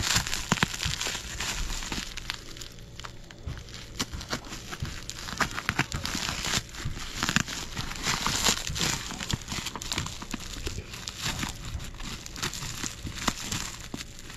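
Plastic bubble wrap and a paper padded mailer crinkling and crackling as hands pull a wrapped box out of the envelope, a steady run of irregular crinkles and small clicks.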